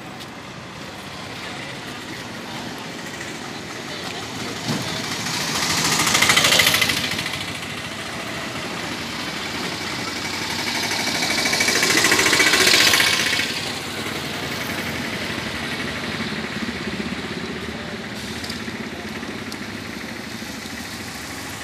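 Road traffic: motorcycles, an auto-rickshaw and a car pass close by one after another over a steady background of engine and tyre noise. Two passing vehicles swell up loudest, about six and twelve seconds in.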